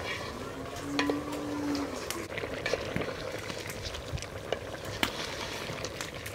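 Fish curry sizzling and bubbling in a pot over the fire as it is stirred, with frequent sharp clicks of a spoon against the pot.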